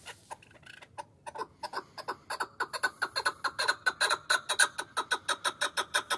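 Chukar partridge calling: a series of short clucking notes that starts sparse and quickens into a fast, even chatter of about six notes a second, growing louder.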